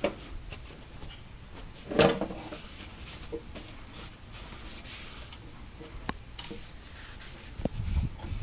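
Paper shop towels rubbing and wiping the oily dry sump oil tank and its lid, with handling noise from the parts. One louder knock about two seconds in and a couple of small clicks later.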